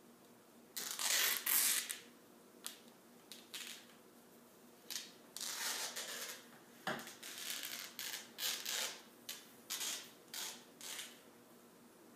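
Athletic tape being pulled off the roll and torn, with strips pressed onto the sole of a bare foot. A longer rip comes about a second in, followed by a run of short rips and crackles.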